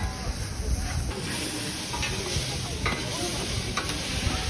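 Yakisoba noodles sizzling on a flat steel griddle, with metal spatulas scraping and clacking against the plate as the noodles are turned.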